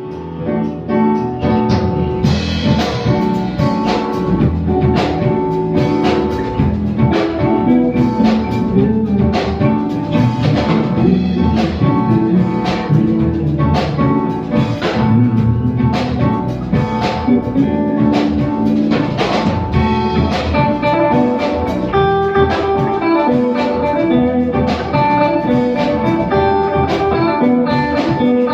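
A live band playing jazz: guitar notes over a drum kit keeping a steady beat.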